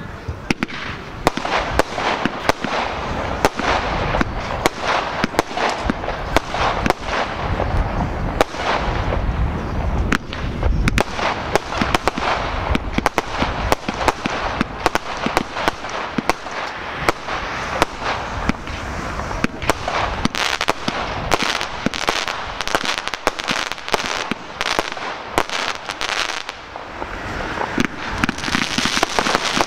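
Hutter fireworks going off in a rapid, dense run of bangs and crackles, with a deeper rumble of heavier reports about a third of the way through.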